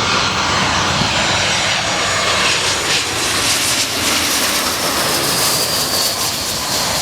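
Jet airliner's engines running loud and steady as it passes low overhead on landing approach, with a faint high whine slowly falling in pitch in the second half.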